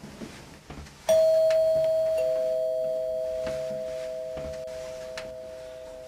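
Two-tone doorbell chime: a higher note about a second in, then a lower note a second later, both ringing on and slowly fading.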